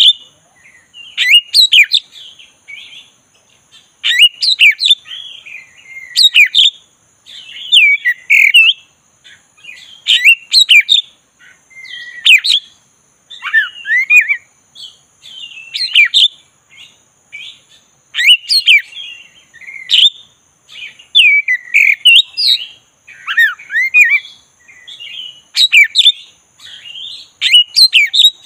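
Black-breasted oriental magpie-robin (kacer dada hitam) singing: varied whistled phrases of rising and falling notes, one roughly every two seconds with short gaps between.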